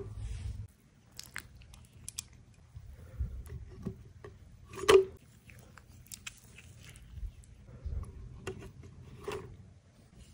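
Metal tongs knocking and scraping in a pot of broth while soaked dried red chiles are lifted out into a plastic blender cup. Scattered light clicks and knocks, the loudest about five seconds in.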